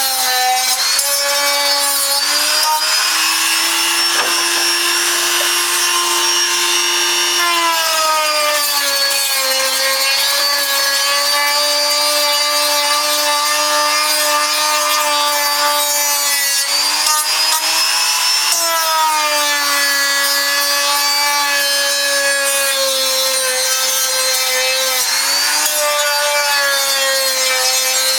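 Small electric power tool working wood, its motor running continuously with a rasping scrape. The motor's pitch sags and recovers every few seconds as the load on the tool changes.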